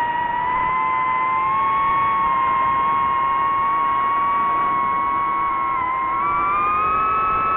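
DJI FPV quadcopter's motors and propellers giving a steady high whine as it flies. The pitch edges up about a second and a half in and climbs again about six seconds in as the throttle is raised.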